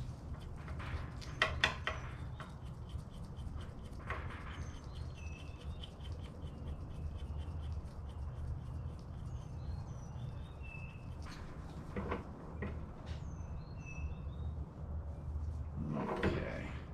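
Harbor Freight benchtop drill press running with a steady low hum, with a few sharp clunks, the loudest about a second and a half in and near the end. Birds chirp repeatedly over it.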